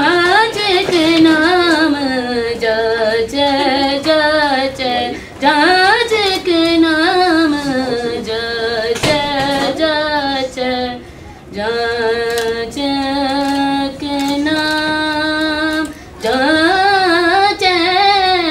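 A young female voice singing solo and unaccompanied, in sung phrases with short breaths between them and a long steady held note a little past halfway.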